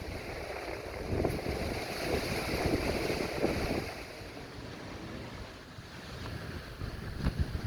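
Hurricane wind gusting and buffeting the microphone over a steady hiss of heavy rain. The gusts ease about four seconds in.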